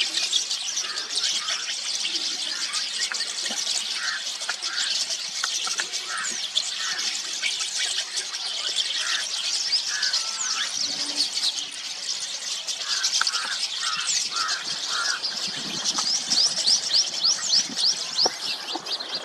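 Rosy starlings chattering: a dense, continuous mix of many overlapping short squeaky and whistled calls, with bursts of lower notes now and then.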